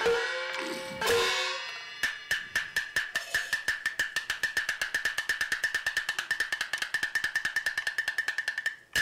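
Recorded percussion music for traditional glove-puppet theatre: a crash with a ringing tail about a second in, then a long, fast, even run of sharp strikes that quickens slightly toward the end.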